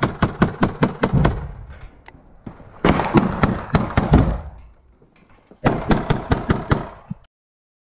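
Automatic gunfire in rapid bursts of about seven shots a second: a long burst that fades out a little over a second in, then two more bursts, one about three seconds in and one about six seconds in.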